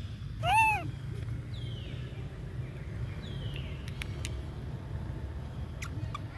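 A single short, high-pitched animal call that rises and falls, about half a second in, over a steady low rumble. Faint falling chirps and a few light clicks follow.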